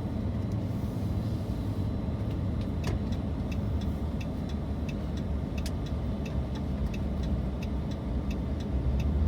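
Car cabin road and engine noise while driving, a steady low rumble. From about three seconds in, a faint regular ticking comes in at about two ticks a second.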